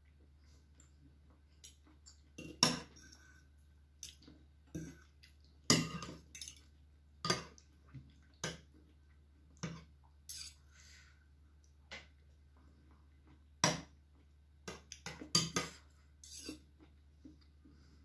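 Metal fork and spoon clinking and scraping against a ceramic bowl in irregular sharp clinks spread through, some coming in quick clusters.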